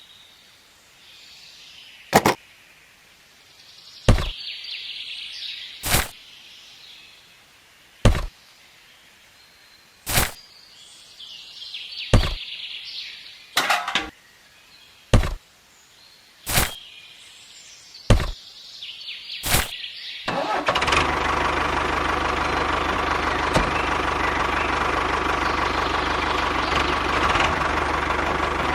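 Sharp single knocks about every two seconds, then about 21 seconds in a small engine starts and runs steadily at idle.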